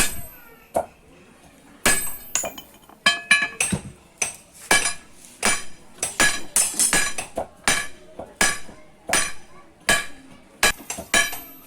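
Blacksmith's hammer striking metal on an anvil with a ringing clang, a fairly steady series of blows at about one to two a second, starting about two seconds in.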